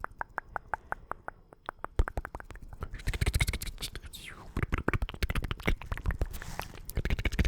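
Close-miked ASMR mouth sounds: quick runs of wet clicks and smacks of the tongue and lips, with a few breathy sweeps between them.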